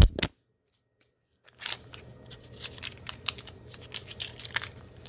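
After about a second of dead silence, close irregular rustling, crinkling and clicking as something crinkly is handled in the hands near the microphone.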